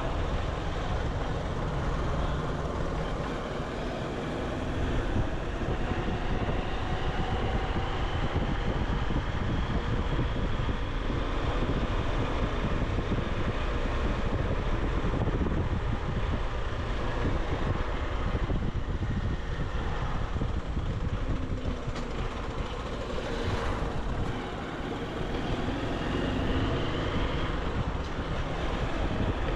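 Motorcycle engine running on the move, with wind and road noise rushing over the rider-mounted microphone. The engine note rises and falls slowly as the throttle changes.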